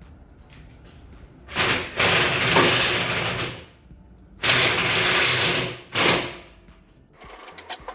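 Socket ratchet wrench cranked in quick runs, clicking densely as it tightens a nut on the mounting of a tool-cart lid's gas shock: two long runs with a short one after.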